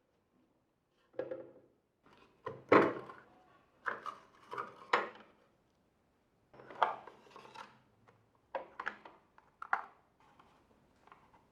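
Irregular clicks, knocks and short scrapes of hard plastic parts and tools being handled as a Nespresso coffee machine is taken apart, the sharpest knock a little under three seconds in.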